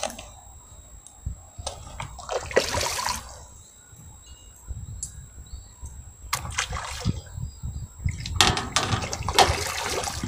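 A hooked crucian carp thrashing at the water's surface as it fights the line, splashing in short bursts about two seconds in and around six seconds, then a longer burst of splashing near the end.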